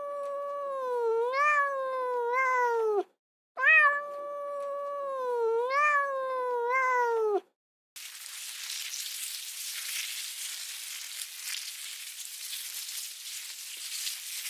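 Two long, drawn-out animal cries, each about four seconds with a slightly wavering pitch, then a steady hiss from about eight seconds in.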